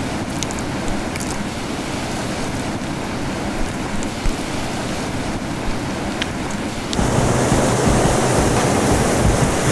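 Ocean surf and wind on the microphone, a steady rushing noise that becomes louder about seven seconds in.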